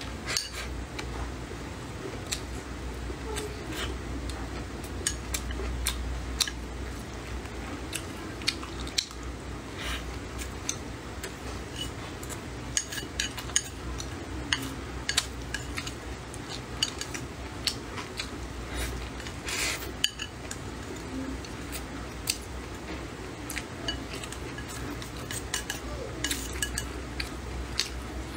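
Chopsticks clicking and scraping against a ceramic rice bowl in many short, irregular taps, with chewing of rice and cured pork between them.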